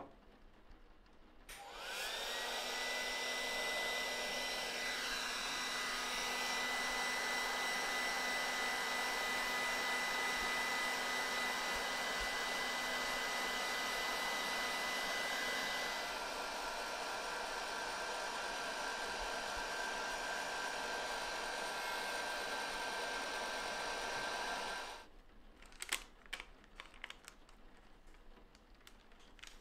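Handheld heat gun blowing hot air over screen-print transfer paper to melt the transfer glue layer. It spins up with a rising whine about two seconds in, runs steadily with a slight drop in pitch partway through, then cuts off, leaving a few faint clicks near the end.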